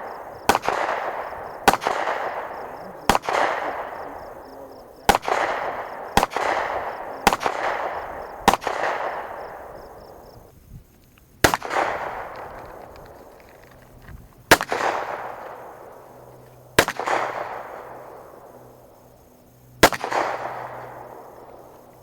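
Eleven single gunshots, each followed by a long rolling echo. The first seven come about a second apart; after a short pause, four more follow two to three seconds apart.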